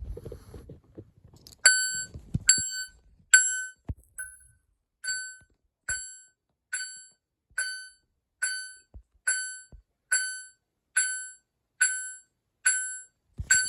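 Fire alarm notification appliance set to high volume, sounding from about two seconds in, after a few handling knocks. It gives evenly spaced short ringing pulses, a little more than one a second, each dying away quickly, and reads about 89 dB at ten feet.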